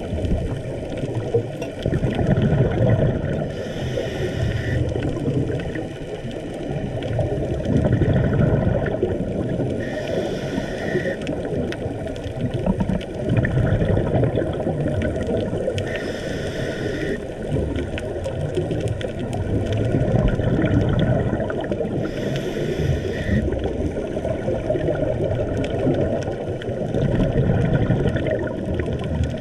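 Scuba diver's breathing heard underwater through a camera housing: about every six seconds a rush of exhaled bubbles is followed by the brief hiss of the regulator, over a constant rushing background.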